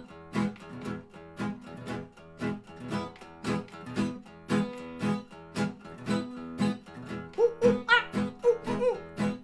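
Acoustic guitar strummed steadily, about two strums a second. About three-quarters of the way in, a man's voice joins with short, rising and falling hoots, imitating a monkey.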